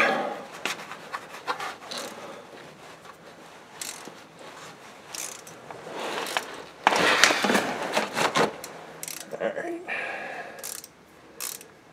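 Irregular clicks, rubbing and scraping of hand tools worked under a car while the transmission drain plug is loosened, with a louder stretch of scraping about seven seconds in.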